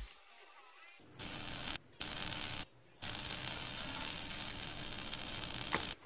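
Steady hissing sizzle of solder and flux being melted on the transistor's joints. It starts about a second in and is cut twice by brief sudden silences.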